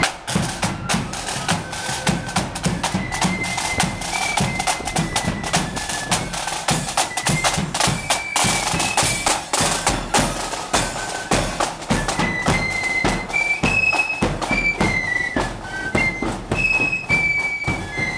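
Marching flute band playing a quick tune: high flutes carry the melody over rapid snare drumming and bass drum beats.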